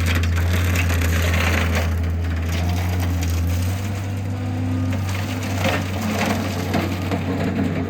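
John Deere skid steer with a brush hog attachment chopping through brush and small trees: a steady low engine-and-cutter drone under continuous crackling and splintering of wood. The drone eases a little after about four seconds while the splintering goes on.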